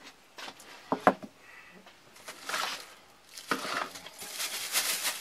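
Metal camping cook pots knocking together twice, sharply, about a second in, then crinkling plastic wrapping rustling in bursts as a bagged pan is handled.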